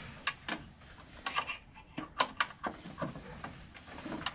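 Small metal parts and tools clinking and tapping as they are handled: a string of irregular sharp clicks, with one louder clink about two seconds in.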